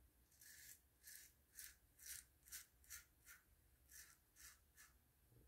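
GEM single-edge safety razor with a Personna GEM blade scraping through lathered stubble on the neck in about ten short, faint strokes, two or so a second. The blade is on its second use and tugging, which the shaver puts down to his whiskers having dulled it.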